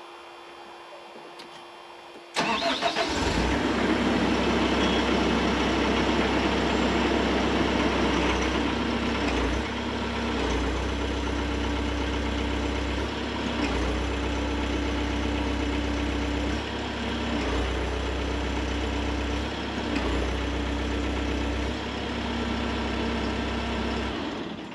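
Mecalac 8MCR compact excavator's diesel engine cranking and catching about two seconds in, then running steadily with small shifts in tone every few seconds, and shutting off just before the end.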